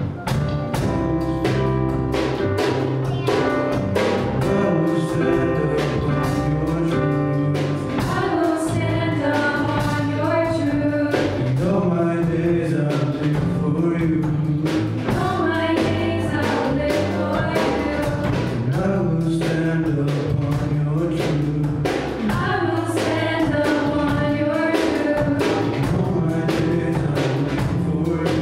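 Live worship band performing a song: a mixed group of male and female singers on microphones singing together over piano, electric bass guitar and drum kit, with a steady beat of drum hits.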